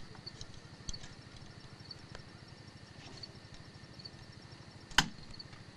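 Metal repair work by hand: light clinks of tools and scrap metal pieces, with one sharp metallic knock about five seconds in, over a steady low pulsing hum.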